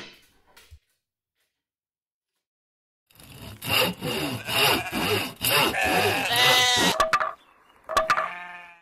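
A saw cutting through wood in rapid strokes for about four seconds, starting a few seconds in. Two short pitched calls follow, one as the sawing stops and one near the end.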